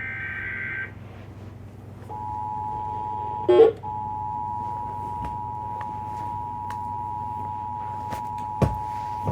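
Emergency Alert System broadcast tones: a short burst of warbling SAME digital header data, then after about a second the steady two-tone EAS attention signal (853 and 960 Hz) begins and holds for about eight seconds, announcing a Severe Thunderstorm Warning. A brief loud burst of noise cuts the tones about three and a half seconds in, and a sharp click comes near the end, over a low steady hum.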